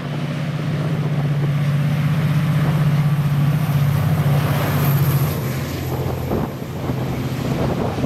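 Irish Rail 071 Class diesel locomotive's EMD two-stroke V12 engine running as it hauls a container freight train past, a steady low note that grows to its loudest about four to five seconds in as the locomotive goes by. Then the noise of the container wagons rolling past, with wind on the microphone.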